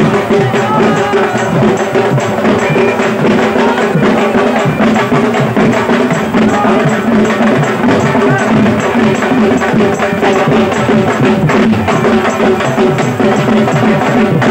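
Live folk drumming for a dance: a laced barrel drum played with fast, dense strokes amid other percussion, loud and without a break.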